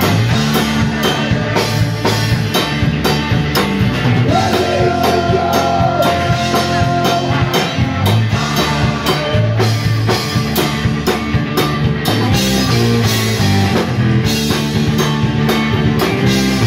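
Live rock band playing: drum kit beating steadily under a bass guitar line, with a man singing into a microphone. A long held note comes in about four seconds in and lasts roughly three seconds.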